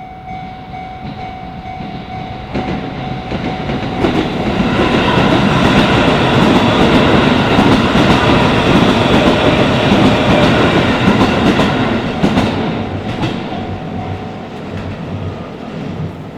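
Shin-Keisei Line electric train passing over a level crossing, its wheels clattering on the rails. The sound builds over a few seconds, is loudest in the middle and then fades away. The crossing's warning bell rings steadily, heard plainly at the start and again as the train goes.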